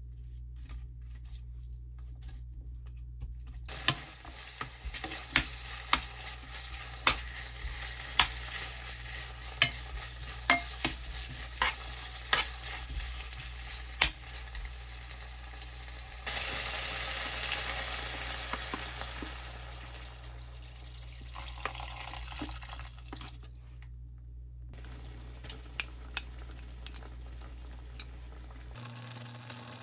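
Food frying in a pan while being stirred, a utensil tapping sharply against the pan about ten times, over a low steady hum. About sixteen seconds in a louder sizzle rises for a few seconds, and a few more taps come near the end.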